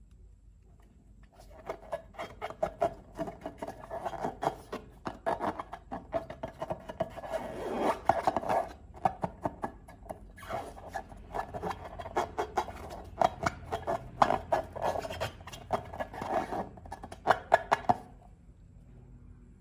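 Slime being worked by hand, a dense run of sticky clicks and crackles with a few short pauses. It starts about a second and a half in and stops shortly before the end.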